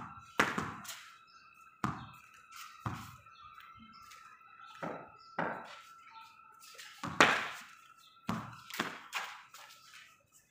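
A cricket ball being played with a bat on a concrete rooftop: about ten sharp knocks at uneven intervals, from ball on bat and ball bouncing on concrete and the parapet wall, the loudest about seven seconds in. A faint steady high tone runs underneath.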